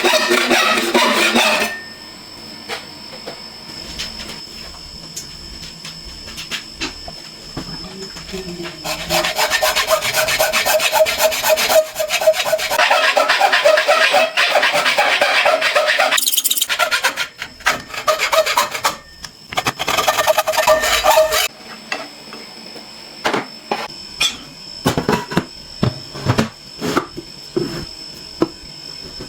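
Rasping, rubbing workshop sounds of a tool working a workpiece. They come in a short burst at the start, then two long stretches of several seconds each, with scattered sharp taps between them and near the end.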